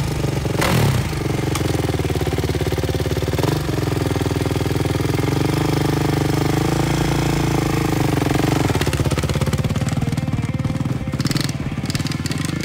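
Kawasaki KX450F dirt bike's four-stroke single-cylinder engine, kick-started, revving once as it catches. It then idles steadily and revs up again near the end as the bike pulls away.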